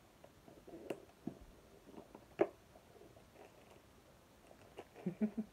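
Hard plastic first aid kit case being handled and worked open: scattered clicks and knocks from the plastic, the loudest about two and a half seconds in, with a brief grunt of voice near the end.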